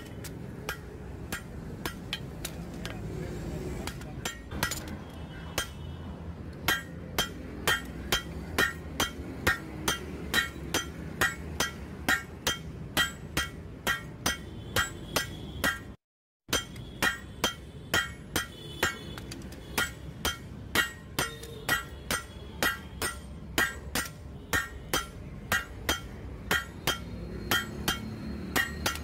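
Hammer blows on a red-hot blade forged from truck leaf-spring steel on an anvil, about two strikes a second, each with a bright metallic ring. The blows are sparser for the first few seconds, and the sound drops out for a moment about halfway.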